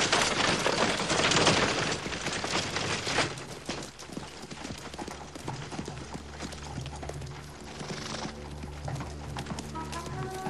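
Hooves of a troop of cavalry horses clattering at speed, loudest for the first three seconds and then fainter as they pass.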